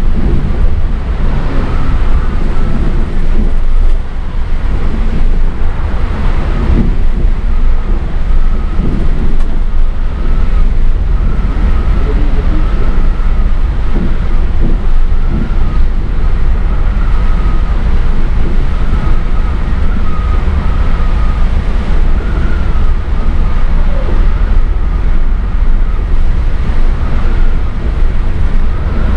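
Volvo B8R coach driving at speed: a loud, steady, deep rumble of diesel engine and road noise, with a faint wavering tone above it and an occasional knock.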